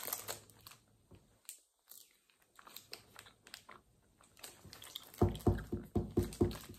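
Quiet chewing of sour apple Laffy Taffy, with faint sticky mouth clicks. About five seconds in comes a quick run of muffled, closed-mouth voice sounds, about eight pulses in a second and a half.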